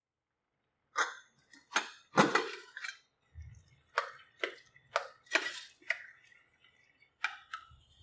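Wooden spoon mashing soft cooked dal in a pressure cooker pot: a run of short strokes and knocks against the pot, about two a second, starting about a second in.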